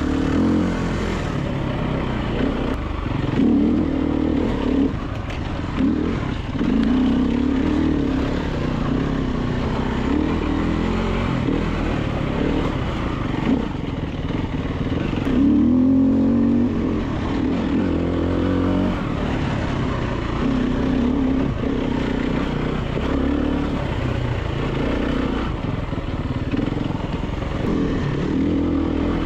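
Single-cylinder four-stroke engine of a 2014 Husaberg FE350 enduro bike being ridden, revving up and down over and over with the throttle, its pitch rising and falling.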